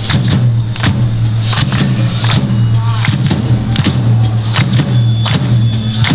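Live rock band playing an instrumental passage with no singing: a steady low bass note under sharp drum hits and handclaps.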